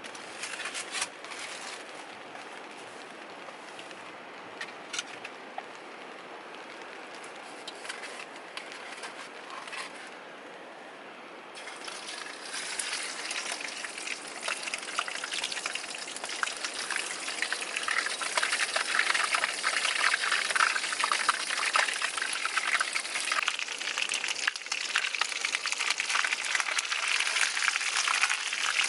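Chicken frying in oil in a pan, sizzling and crackling. A few sharp clicks and knocks come first, then the sizzle starts about twelve seconds in and grows louder.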